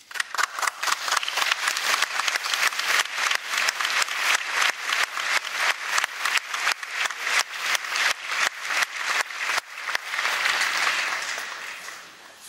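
Audience applauding, with strong claps coming about four a second. About ten seconds in it turns into an even patter of applause that fades.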